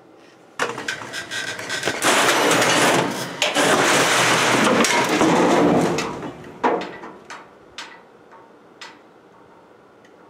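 A heavy Anyang power hammer, a 33 lb-ram machine weighing about 1750 lb, slides off its steel pallet and topples over. It makes a loud scraping, clattering crash of about four seconds, followed by a few separate knocks as things settle.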